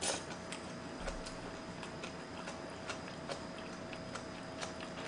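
Soft, irregular clicks and smacks of a mouth chewing chewy ramen noodles close to the microphone, with a faint steady hum underneath.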